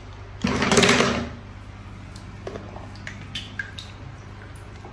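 A short splash-like rush of water noise about half a second in, then light scattered clicks and taps of small wet plastic toy cars being handled over a water-filled plastic basin, over a steady low hum.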